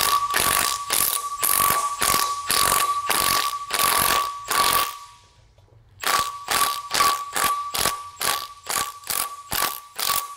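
Impact wrench hammering a pinion nut down in quick rapid blows over a steady whine, stopping for about a second midway and then starting again. The nut is drawing the pinion up through a homemade pipe spacer to press the pinion bearing into place on a Dana 44 axle, without crushing the crush sleeve.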